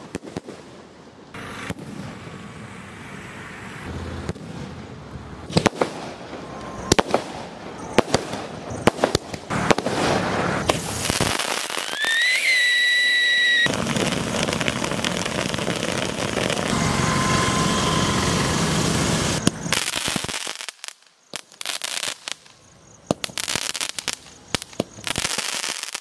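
Fireworks going off in a run of short clips: sharp bangs and crackles of aerial shells. About halfway through, a whistle rises and then holds for a second or so, followed by several seconds of a steady hissing spray of sparks from a ground fountain, then more scattered bangs.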